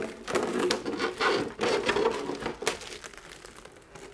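Protective outer film being peeled off a painted RC crawler body shell, crackling and crinkling in irregular bursts that die away near the end.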